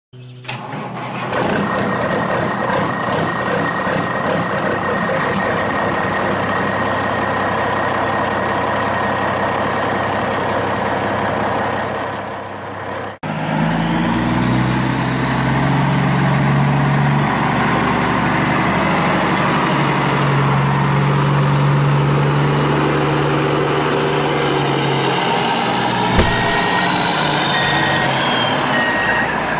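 Truck sound effect: a truck engine running, with a sharp change about thirteen seconds in. Near the end a high whine falls away and a reversing alarm starts beeping.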